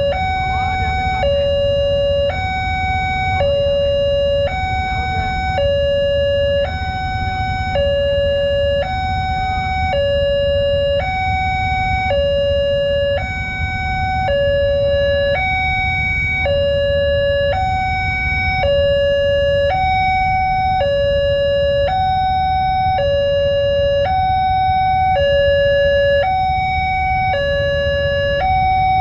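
Railway level-crossing warning alarm sounding its electronic two-tone chime, a high note and a low note alternating about once a second without pause: the signal that the barriers are down and a train is due. A steady low rumble of traffic runs beneath it.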